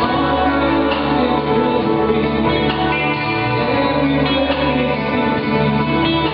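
Live band music with guitar to the fore, over held chords and a steady bass line.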